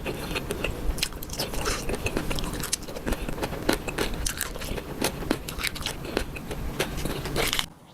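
Close-up sounds of a person eating: chewing and crunching food, with many quick, irregular crisp clicks. The sound cuts off abruptly near the end.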